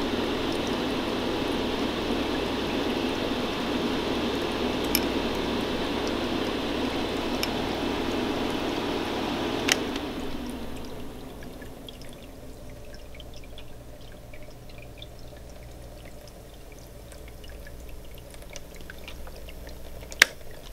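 Homemade fog tornado machine running with a steady whooshing hum. About ten seconds in, a sharp click comes and the hum dies down as the vortex breaks up, leaving faint ticking and dripping from the fog maker's water dish, with another sharp click near the end.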